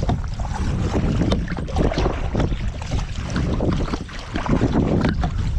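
Wind buffeting the microphone, a loud low rumble, over irregular splashes of kayak paddles in the water.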